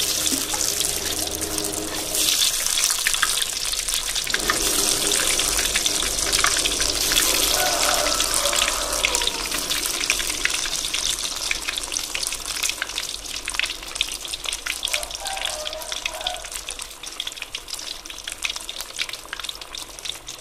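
Flour-coated tempeh slices frying in hot oil in a wok: a loud sizzle with dense crackling that starts suddenly as the pieces go in, grows louder about two seconds in as more go in, and eases off gradually toward the end.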